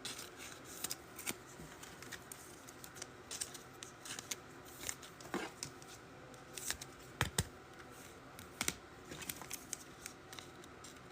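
Trading cards and packs being handled on a table: faint, scattered clicks and rustles, with a sharper knock about seven seconds in.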